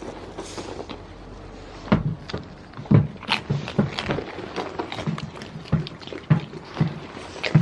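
A steady rushing hiss, then from about two seconds in an irregular run of close, short knocks and rubbing sounds, about two a second, as a goat nuzzles the phone and nibbles at fingers right at the microphone.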